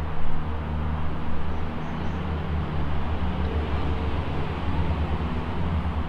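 A steady low mechanical hum, like a machine running, unchanged throughout.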